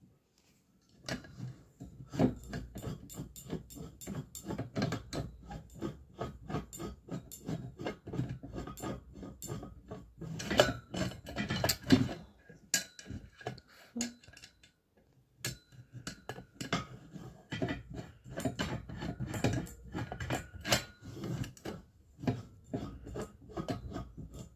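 Metal clinks, taps and rattles of flat-pack bed-frame poles and fittings being handled and screwed together, as a rapid run of small clicks. There is a short lull a little past halfway.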